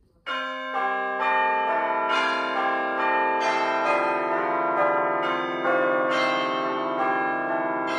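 Closing music of bell-like chimes that starts abruptly a moment in: many pitches struck in quick succession and ringing over one another.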